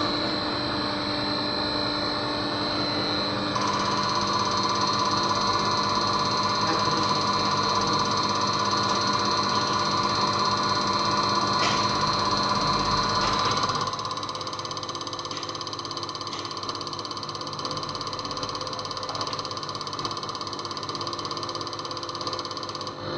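A machine running with steady high whines over a fast, even, ratchet-like mechanical ticking. It gets louder about three and a half seconds in, then drops quieter about fourteen seconds in, where the higher whine stops.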